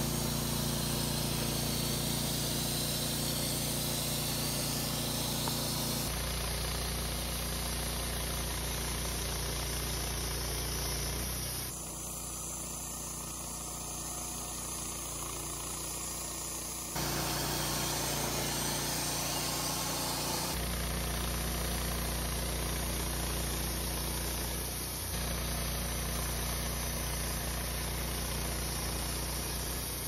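Wood-Mizer LT15 portable bandsaw mill running, its engine humming steadily while the band blade cuts through a log with a hissing sawing noise. The sound changes abruptly several times, louder in some stretches and quieter in others.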